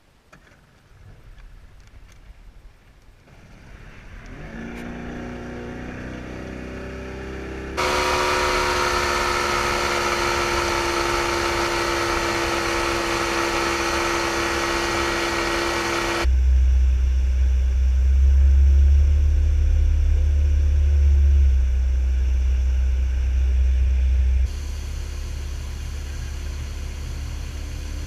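An engine running steadily, heard in several segments that cut in and out abruptly, with a heavy low rumble in the middle part.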